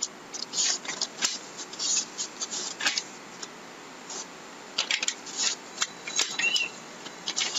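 Irregular rustling and clicking handling noises, with a brief high squeak about six and a half seconds in.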